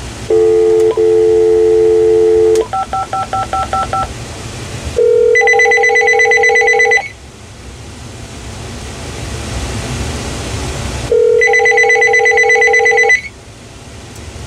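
A telephone dial tone for about two seconds, then a quick run of touch-tone dialing beeps, then a Uniden 900 MHz cordless phone's electronic warbling ringer ringing twice, each ring about two seconds long with a pause of about four seconds between them.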